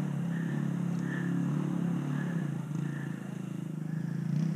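Enduro dirt bike engine running and revving unevenly, its pitch rising and falling with a dip about three seconds in.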